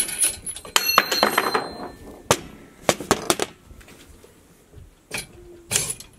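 Steel hand tools clinking and clattering as a breaker bar with strut socket and Allen wrench is lifted off the strut's top nut, the metal ringing briefly. Then a few separate sharp clicks and knocks follow, one near the end.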